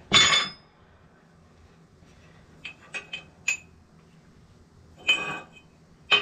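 Metal parts clinking and clanking as an aluminium supercharger case plate and loose bearings are handled on the steel bed of a shop press. A loud ringing clank comes at the start, a few sharp clinks follow about three seconds in, and two more clanks come near the end.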